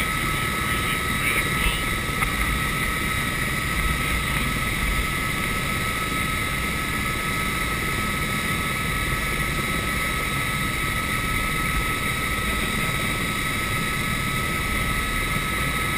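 Helicopter's turbine engine and rotor running steadily while parked on the ground, heard from inside the cabin: a constant high whine over a low rumble.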